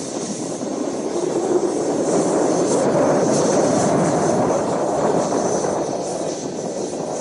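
Glass-fibre L-59 model jet flying past high overhead: a rushing jet sound with a thin high whine, swelling to its loudest about three to four seconds in and then easing off.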